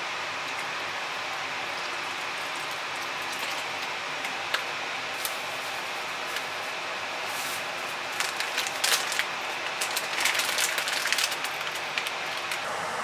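A saucepan of meat simmering on an induction hob, with a steady hiss of bubbling liquid. From about eight seconds in, a spell of crackles and small splashes as ingredients go into the pot.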